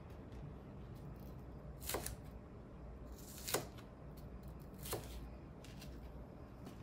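Kitchen knife slicing green bell pepper on a plastic cutting board: three sharp cuts about a second and a half apart, with a few fainter taps.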